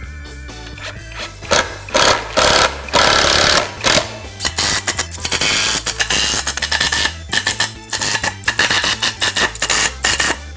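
A power screwdriver driving screws into wooden framing in a string of loud bursts, each lasting about a second, over background music.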